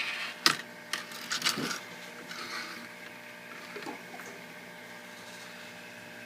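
Several sharp clicks and taps of soldering tools being handled on a workbench in the first two seconds, over a steady electrical hum.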